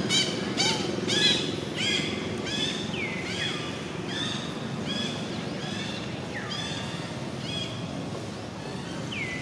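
A run of high-pitched animal calls repeating about every two-thirds of a second, loudest in the first second or two and then fading, over a low steady rumble.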